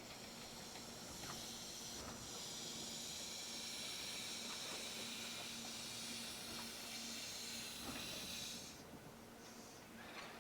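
Train wheels squealing as they take a curve: a high-pitched screech of several steady tones that builds over the first two seconds, holds, and cuts off about nine seconds in.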